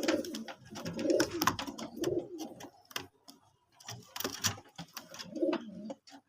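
Domestic pigeons cooing in low, throaty bursts several times, with scattered sharp clicks and taps.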